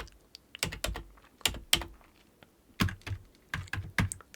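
Computer keyboard typing: irregular key clicks in short bursts with a brief pause in the middle, as a phone number is entered.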